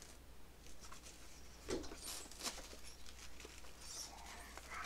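Faint rustling and light taps of cardboard and paper being handled as a printed card insert and a paper sheet are lifted out of a cardboard box, with one soft knock a little under two seconds in.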